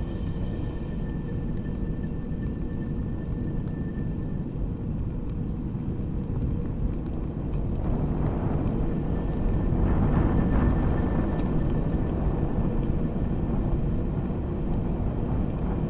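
Wind buffeting the microphone and the rumble of rolling along a paved path, steady throughout and swelling louder about halfway through. A faint steady high whine comes and goes.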